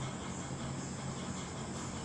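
Steady background hiss with a constant low hum underneath, even throughout with no distinct knocks or clicks.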